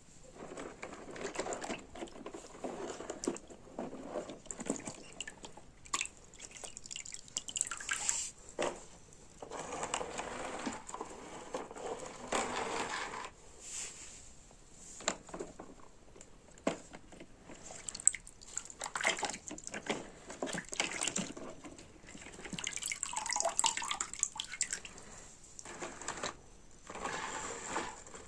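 Water splashing and dripping in repeated short bursts of a second or two, with light clicks, as small plastic toy vehicles are washed in water.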